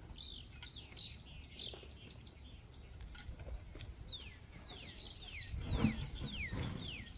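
Birds calling in quick runs of short chirps, each sliding down in pitch, over a steady low rumble, with a knock about six seconds in.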